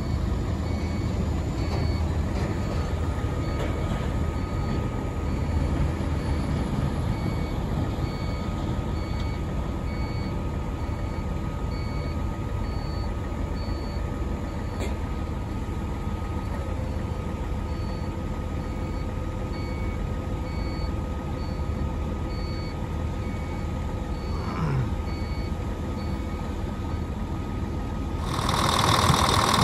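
Hyundai HX520L tracked excavator running, with a warning beeper sounding about one and a half times a second while the elevating cab is raised and tilted on its hydraulic arm; a steady whine runs under it. Near the end the engine is heard close up and louder.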